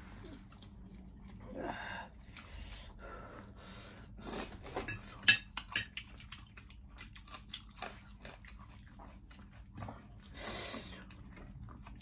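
Eating at a table: a fork clinking and scraping against ceramic plates, with chewing. A run of sharp clicks comes in the middle, the sharpest about five seconds in, and two short breathy rushes come, one near the start and one near the end.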